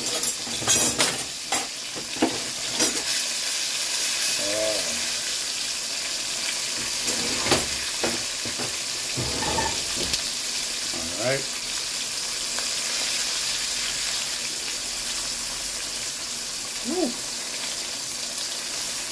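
Flour-battered snapper steaks deep-frying in hot oil, a steady sizzle, with a few sharp clicks in the first three seconds.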